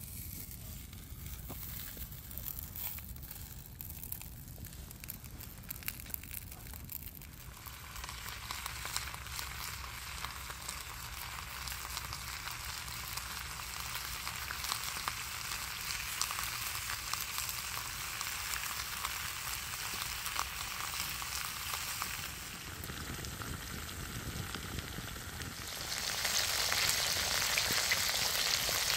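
Homemade sausages frying in melted pork lard in a wide pan over a wood fire: the fat sizzles steadily. The sizzle is faint at first, grows much stronger after about seven seconds, and gets louder again a few seconds before the end.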